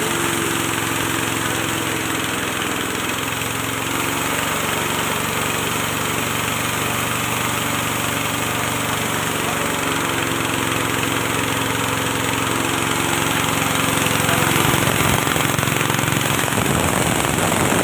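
Engine-driven rice-bran mill running steadily, its engine note under a dense grinding hiss as the material is milled into bran. Near the end the note roughens and gets slightly louder.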